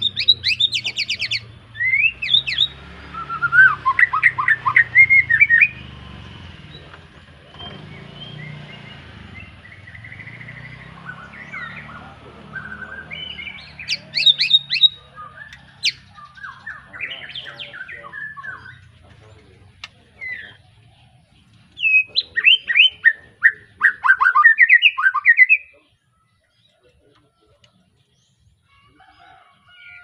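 A young white-rumped shama, just moulted out of its speckled juvenile plumage, singing in bursts of rapid, varied whistled phrases with pauses between them. It falls silent near the end.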